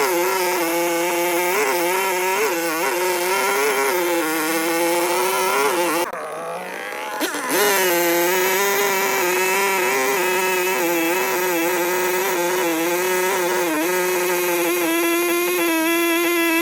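Chainsaw engine running at high revs, its pitch dipping slightly now and then as under cutting load. It drops off briefly about six seconds in, then revs back up.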